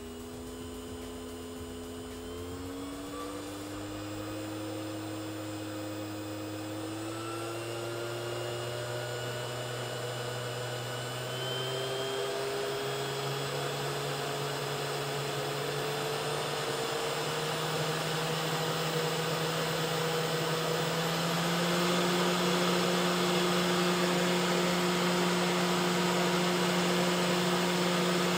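500W air-cooled DC spindle motor running free, its whine rising in pitch in several steps and growing louder as its driver's speed knob is turned up to full output.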